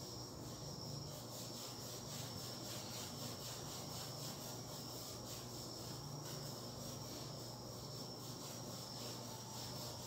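Faint, steady, high-pitched pulsing trill of crickets over a low background hum.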